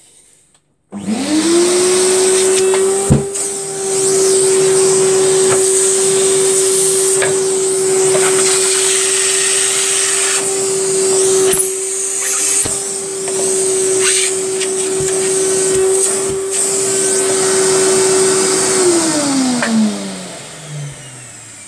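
Henry vacuum cleaner switched on about a second in, its motor spinning up quickly and then running steadily while pulling air through a plastic pipe and hose dust-extraction line. A few sharp knocks come from the fittings being handled. Near the end it is switched off and the motor winds down with a falling pitch.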